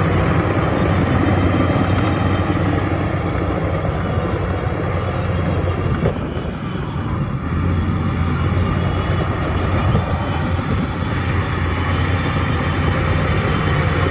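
Shantui bulldozer's diesel engine running steadily with a deep, low hum while pushing earth, easing off briefly about halfway through and then picking back up.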